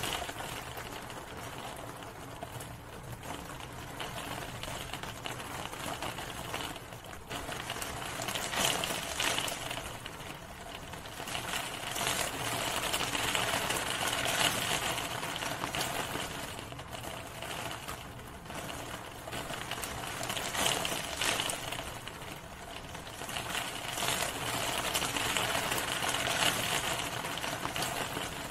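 Rain falling as a dense patter of drops, swelling and easing every few seconds.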